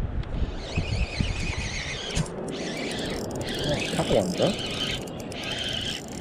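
Spinning reel's drag squealing in stretches as a hooked fish pulls line off the spool, with wind rumbling on the microphone at the start.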